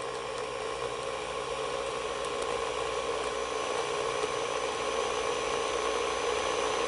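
Electric countertop blender running steadily, liquefying pork brains and a little tepid water into a puree. Its motor hum with a thin high whine holds steady and grows slightly louder.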